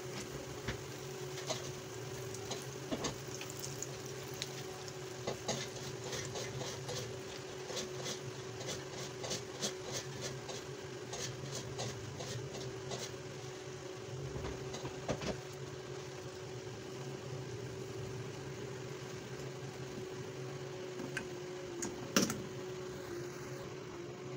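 Jalebi batter spirals deep-frying in hot oil: the oil sizzles with a dense crackle of small pops that thins out after about halfway, over a steady hum. A single sharp knock comes near the end.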